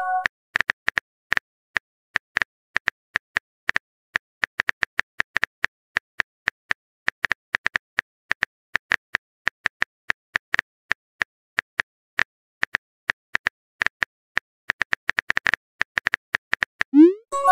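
Simulated phone keyboard tap clicks from a texting-story app, several a second at an uneven typing pace, as a message is typed out. Right at the start and again near the end a rising swoosh and a short chime mark a message being sent.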